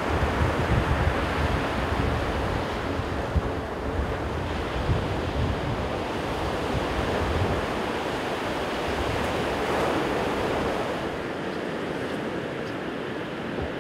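Ocean surf breaking and washing up a sandy beach in a steady roar of noise, with wind buffeting the microphone in low rumbling gusts that ease toward the end.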